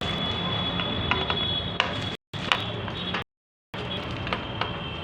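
Small metal clicks and taps of a screw being tightened into a barstool's fitting, over a steady background hum with a thin high whine. The sound cuts out completely twice, briefly.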